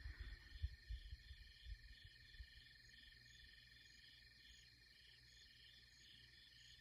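Faint night chorus chirping steadily, about three pulses a second, with a few faint low thumps in the first two seconds or so.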